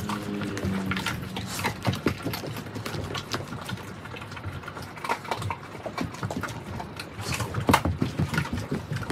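Mastiffs chewing raw turkey: wet smacking and licking with irregular sharp crunches of bone, the loudest crunches near the end, and a short low pitched sound near the start.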